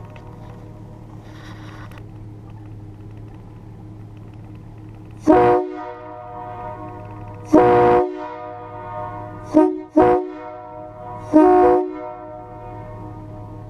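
Three-trumpet Nathan air train horn (bells 1, 2 and 4A), which the owner takes for a K3LA, sounding a chord in five short blasts: two single blasts, a quick double, then one more. A steady low hum runs underneath.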